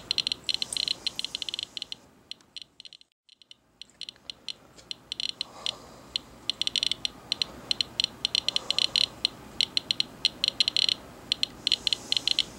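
Radiation Alert Inspector Geiger counter clicking at random intervals as it counts the radon-progeny rain-out on a wipe sample. The clicks come much faster than the 36 CPM background, which marks elevated radioactivity. They go sparse for a moment about three seconds in, then come thick and fast again.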